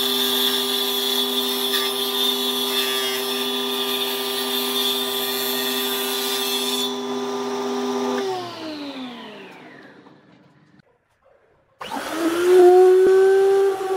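A woodworking machine's electric motor runs with a steady hum, then switches off and winds down with a falling pitch to a stop. About twelve seconds in, a table-mounted router starts with a quick rising whine and runs loud and steady.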